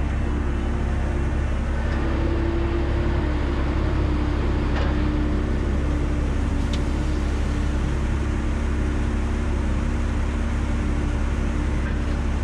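Volvo A30C articulated dump truck's diesel engine running steadily at idle while parked, heard from the cab, with a couple of faint knocks about halfway through.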